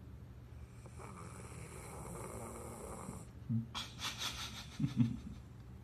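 Sleeping golden retriever snoring: a slow noisy breath, then several louder short snores in the second half.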